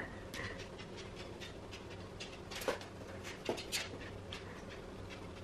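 A small curly-coated dog's claws clicking and tapping on a wooden floor as it scampers after a laser dot, in short irregular ticks with a few louder taps about halfway through. A faint steady hum lies underneath.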